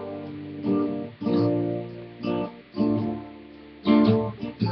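Guitar capoed at the third fret, strumming a slow chord progression: about six chords, each struck once and left to ring out before the next.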